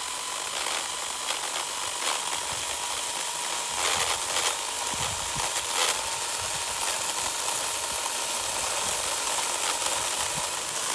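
Battery-powered chainsaw cutting into an elderberry trunk: a steady electric motor whine over the hiss of the chain in the wood, with a few crackles in the middle.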